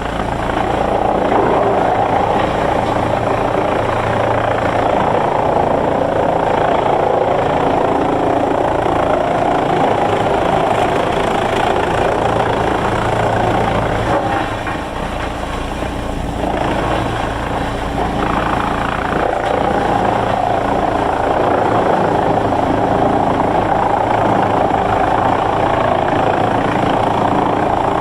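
Sawmill machinery running steadily with a loud, dense drone, easing briefly about halfway through before picking up again.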